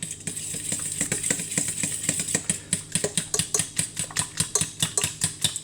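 A utensil clinking and scraping against a small saucepan in quick, even strokes, several a second, while mashed banana is stirred into hot water.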